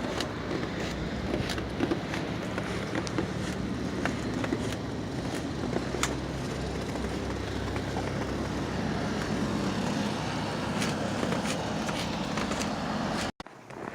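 Pickup truck driving: a steady engine hum and road noise with scattered light clicks. It cuts off abruptly near the end.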